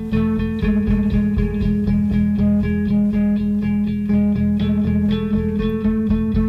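Shoegaze rock band music: guitars play over a sustained low drone, with a steady pulse of notes.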